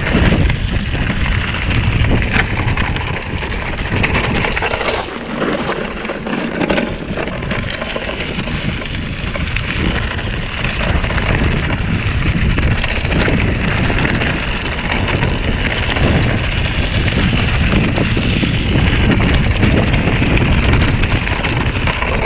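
Mountain bike ridden over a loose gravel dirt track: tyres crunching on stones and the bike rattling, with wind rumbling on the camera's microphone. The low rumble eases briefly about five seconds in.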